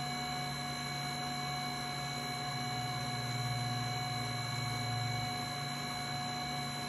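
HumminGuru ultrasonic record cleaner running in its drying phase: a steady fan hum with several constant whining tones. The low hum swells slightly about three to five seconds in.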